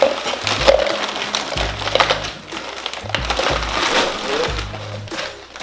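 A plastic bag of frozen vegetables crinkling while hard frozen pieces rattle out of it into a plastic measuring cup. Background music with a steady bass beat plays underneath.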